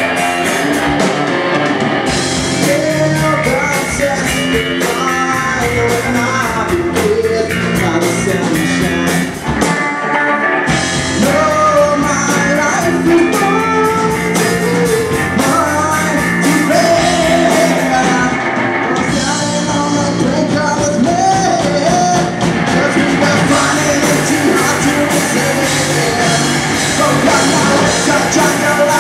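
Rock band playing live with a singer, guitar and drums, the music dropping back for about a second near the ten-second mark before coming back in full.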